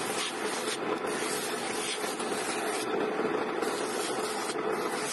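Motorised sanding drum running with a steady hum while a small piece of wood is pressed against it; the gritty hiss of sanding swells and eases every second or so as the piece is pressed on and drawn back.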